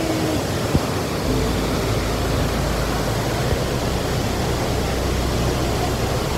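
Steady rushing of a waterfall pouring into a pool, heard close by, with a low rumble under it from about a second in.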